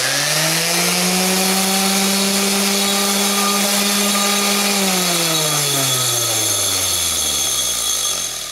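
Electric random-orbit sander running with the cut rim of a glass beer bottle pressed to its pad, smoothing the sharp cut edge, with a hiss from the sanding over the motor's steady hum. About five seconds in the motor is switched off, and its pitch falls as it winds down over the last three seconds.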